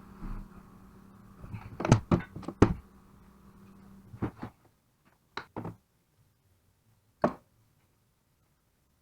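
Sharp knocks and clicks of hard objects being handled and set down, typical of tools and alternator parts on a workbench during disassembly: three loud knocks in quick succession about two seconds in, then two pairs and a single knock spread over the next five seconds.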